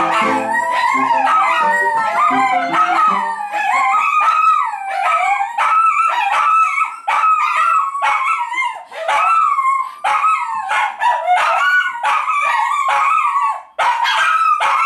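Shih tzu–pug mix dog howling along to piano music in long, wavering pitched howls. The piano stops about three and a half seconds in, and the dog keeps howling on its own with brief breaks.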